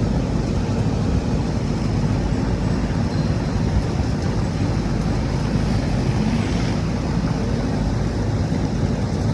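Strong storm wind buffeting the phone's microphone in a steady low rumble, with heavy rain falling.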